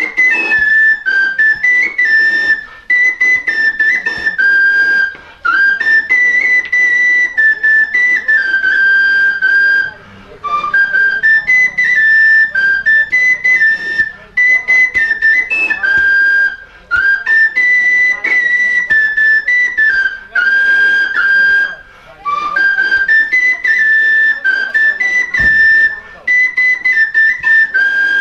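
Bansuri flute playing a slow folk melody in phrases of about five seconds, with brief pauses between them and long held notes. The tune is that of a Marathi grinding-stone song (jatyavarchi ovi).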